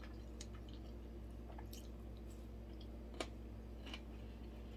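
Close-miked chewing of a cucumber maki sushi roll: soft wet mouth sounds with a few small clicks, over a faint steady low hum.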